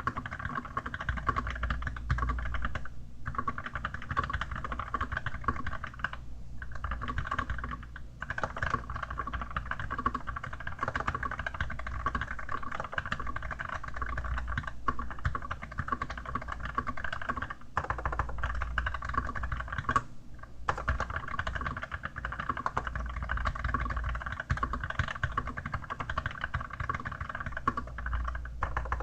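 Archon AK87 mechanical keyboard with Kailh Dark Gray switches, covered with a keyboard skin, being typed on fast and continuously, with a few short pauses.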